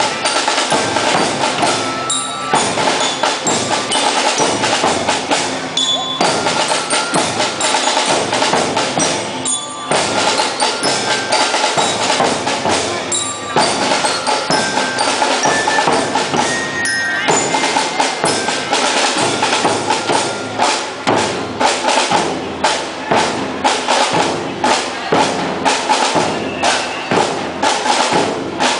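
Marching band playing: a drum line beating under bell-like mallet notes, the strikes falling into a steady, even beat in the last third.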